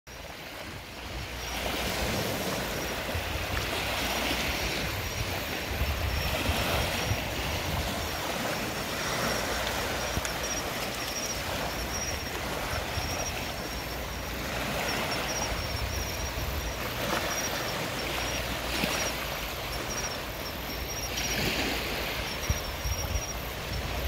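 Sea waves washing onto the beach, the wash swelling and easing every two to three seconds over a steady low rumble.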